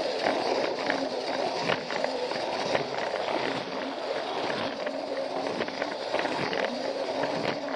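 Battery-powered Plarail toy train running on plastic track, heard up close from the car carrying the camera: its small motor whirs steadily while the wheels rattle and click along the track.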